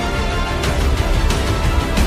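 Background music track with a strong bass and a steady beat, cymbal-like hits recurring.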